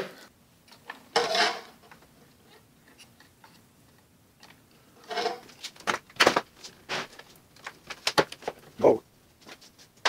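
Handling noise of the opened typewriter's parts: a brief rustle about a second in, then a run of sharp clicks and light knocks from about five seconds on.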